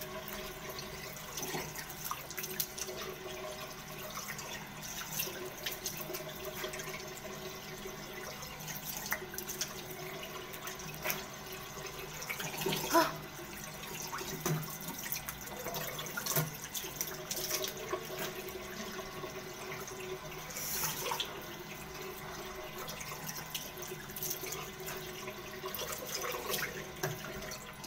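Water running from a bathroom sink tap in a thin stream, with hands cupping it and splashing it onto the face now and then; a few louder splashes, the biggest about halfway through.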